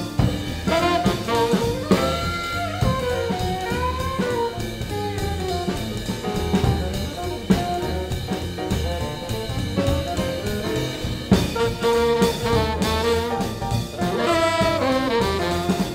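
Swing band playing live: an alto saxophone carries a solo line over bass, drums and piano, and the horn section comes back in together near the end.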